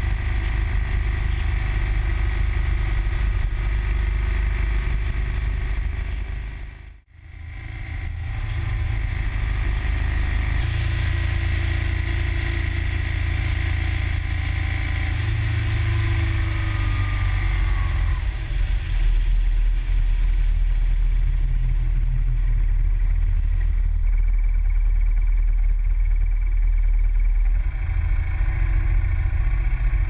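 Motorcycle engine running steadily at road speed, heard from the bike itself with road noise, briefly dipping out about seven seconds in.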